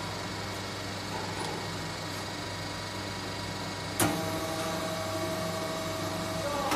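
Automatic embossing press humming steadily. About four seconds in a sharp click sounds as it is started with its two-hand buttons, followed by a steady whine as the upper platen comes down onto the fabric.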